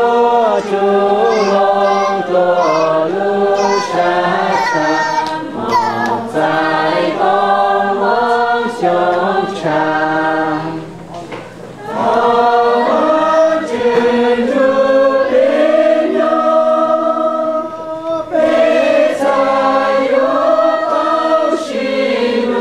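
Men and women singing a hymn together in unison, holding long notes, with a short break about halfway through.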